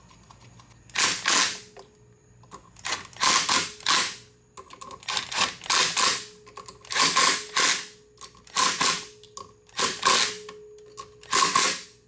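Cordless impact driver running in about seven short bursts of a second or less, driving short 5/16 bolts through a plastic cooling fan into a 49cc scooter engine's flywheel.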